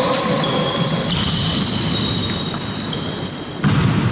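Basketball being played on a court: sneakers squeaking in many short overlapping high squeals, over the thuds of the ball bouncing, with a louder burst of activity near the end.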